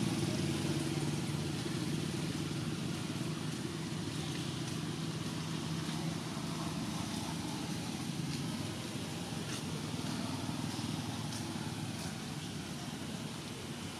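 A steady low engine hum from a vehicle, slowly fading, with a few faint clicks in the second half.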